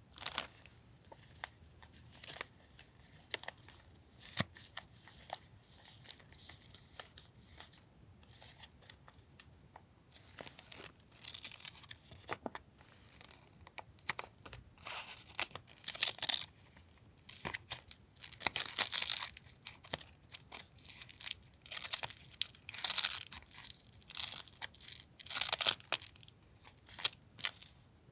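Paper stationery being handled: light taps and rustles, then from about ten seconds in a series of short tearing sounds, each about a second long, as paper is torn or peeled.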